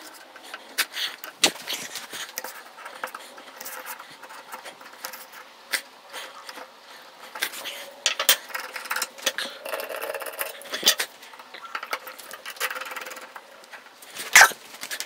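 Sped-up handling noise of metal background stands being clamped to a wooden table and a crossbar fitted: a quick, irregular run of clicks, knocks and scrapes, with one loud knock near the end.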